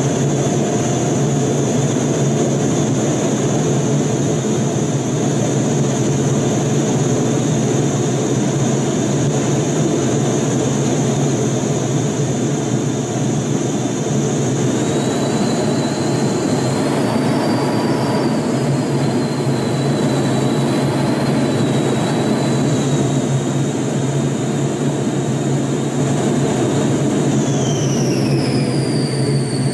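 Cockpit noise inside a T-38 Talon: a steady rush of air and low hum under the high whine of its twin J85 turbojets. The whine wavers slightly midway, then glides down in pitch near the end as the engines are throttled back at touchdown.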